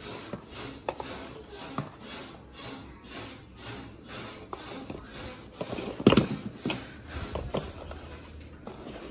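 Cardboard toy boxes being handled and turned on a table, rubbing and scraping, with a few clicks and a louder knock about six seconds in. An even pulsing hiss repeats about three times a second underneath.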